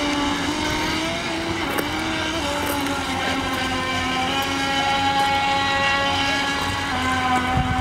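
Radio-controlled speedboat's motor running at speed with a steady whine, its pitch shifting slightly as the boat turns, over the hiss of the hull spraying water.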